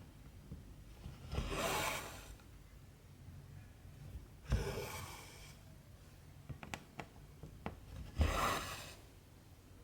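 Cotton embroidery floss drawn through cross-stitch fabric with a rasping rub, three pulls a few seconds apart, with a few light ticks in between.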